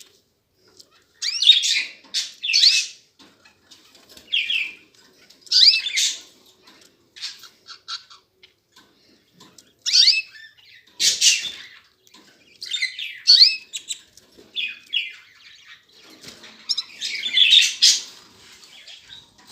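Canaries calling: short bursts of high chirps with quick rising and falling notes, every second or two, with brief quiet gaps between them.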